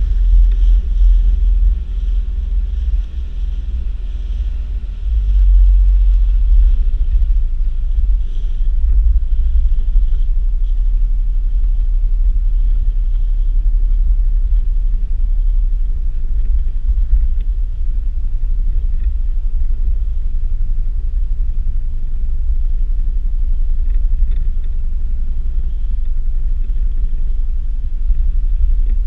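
Gusty wind buffeting the microphone on an open boat: a loud low rumble that swells and dips, with a faint steady hum under it.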